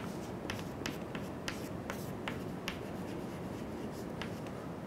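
Chalk writing on a chalkboard: a string of short taps and scratches as letters are drawn.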